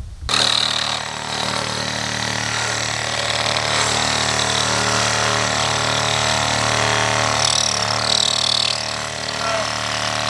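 A motor running steadily with an even hum, cutting in suddenly just after the start.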